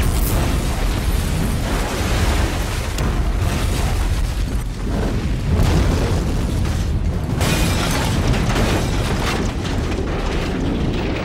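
Bunker buster bomb explosions: a continuous heavy rumble with sharper blasts, one about seven seconds in and another near the end.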